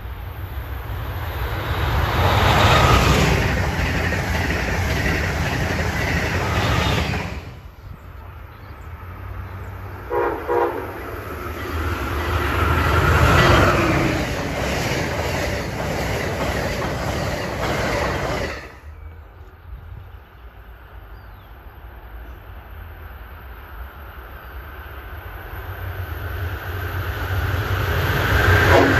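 An Amtrak Acela high-speed train rushes past, its wheel and wind noise swelling and then holding. Next, an Amtrak ACS-64 electric locomotive sounds two short horn blasts and hauls a passenger train past. Near the end another ACS-64-led train approaches, growing louder, and a horn sounds at the very end.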